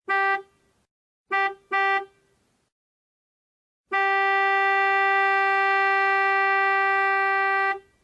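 Car horn honking at one steady pitch: a short honk, two quick honks about a second later, then one long honk of nearly four seconds.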